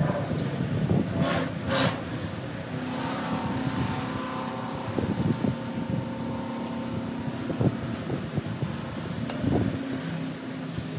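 Scattered small clicks, knocks and rattles of metal parts being handled as a carburetor is fitted to a Yamaha TTR-125 dirt bike engine, over a steady hum. A brief hissing rush comes about a second and a half in.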